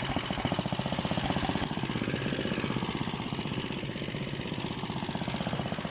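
Single-cylinder engine of a Luch walk-behind tractor running steadily under way, a rapid, even putter of firing strokes that eases slightly in loudness partway through.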